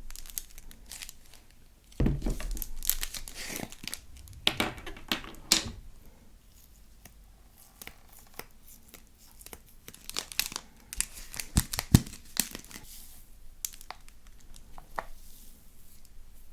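Slime being kneaded and mixed by hand, in irregular noisy bursts with sharp clicks. It is loudest from about two to six seconds in, with a cluster of sharp clicks near twelve seconds.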